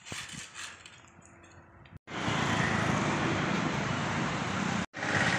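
Steady rushing outdoor noise with no clear pitch, coming in loud about two seconds in after a faint quiet background, and dropping out for a moment near the end.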